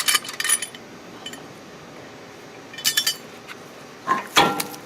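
Loosened wheel lug nuts being taken off by hand, with short spells of metal-on-metal clinking at the start and again about three seconds in, then a louder knock with a brief ring near the end.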